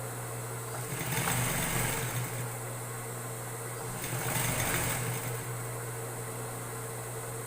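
Electric sewing machine stitching a trouser hem in two short runs, about a second in and again about four seconds in, over a steady low hum.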